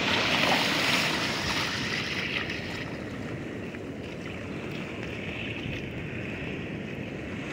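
Sea surf washing in over a sandy beach: an even rushing wash, a little louder in the first couple of seconds and then steady.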